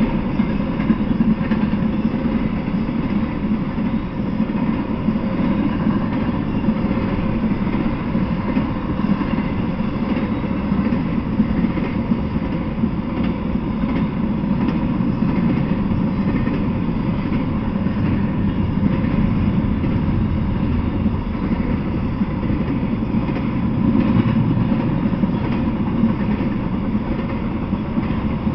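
Intermodal freight train rolling past at a steady speed: a continuous, even rumble of steel wheels on the rails.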